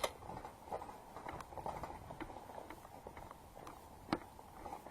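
Footsteps through woodland undergrowth: irregular soft steps with scattered faint snaps and clicks.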